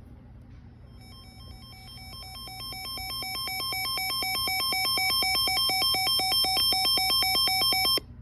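Electronic two-tone alert signal warbling between two pitches about four times a second, growing louder over its first few seconds and then cutting off abruptly. It is the attention tone that opens the next emergency alert, coming after the alert's data burst and before the spoken warning.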